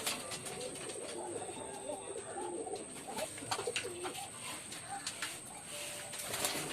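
Several domestic pigeons cooing, their short calls overlapping, with scattered sharp clicks among them.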